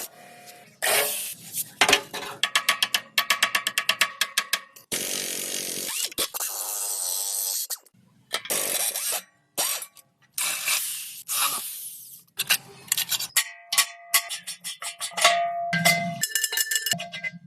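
Workshop tool work on metal during a cement mixer restoration: quick runs of sharp clanks, a few seconds of steady rasping or grinding noise about five seconds in, and ringing metal clanks near the end.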